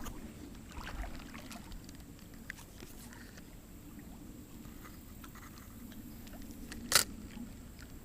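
Faint steady rush of river water with scattered small clicks, and one sharp knock about seven seconds in.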